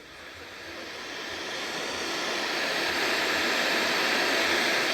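Radio static: a steady hiss of white noise that swells over the first few seconds, then holds level.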